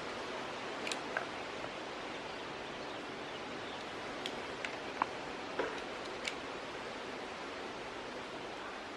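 Steady background hiss with a handful of light, sharp clicks and taps from plastic pet-stroller parts being handled as the back wheels are fitted.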